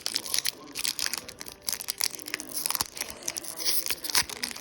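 Foil Pokémon booster pack wrapper crinkling and tearing in the hands as the pack is handled and opened, with irregular crackles throughout.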